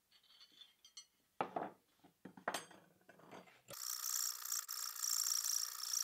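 A few metal clinks as tools are handled, then about two-thirds of the way in a hand file starts rasping back and forth across a steel pocket-knife blade held in a vise, in quick, continuous strokes.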